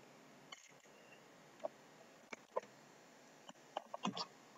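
Faint, scattered clicks and light knocks from handling a small toy doll in a plastic basin of water, coming a little closer together near the end.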